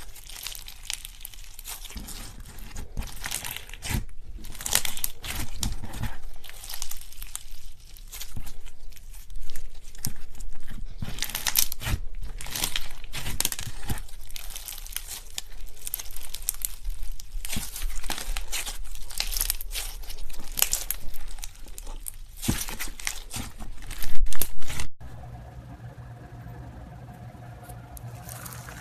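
Slime being squeezed and worked by hand, giving dense, irregular crackling and crinkling, with a loud burst near the end. It then gives way to a quieter steady low hum.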